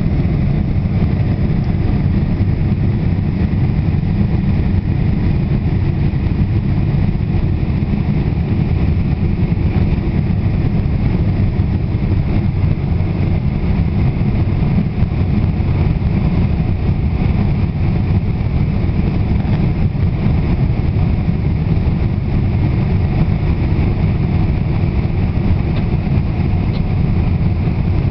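Steady cabin noise inside a Boeing 747 airliner: a deep, even rumble of the jet engines and rushing air, with a fainter hiss above it.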